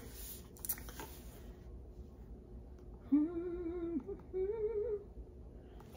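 A woman humming two held notes about a second long each, the second a little higher than the first, starting about three seconds in.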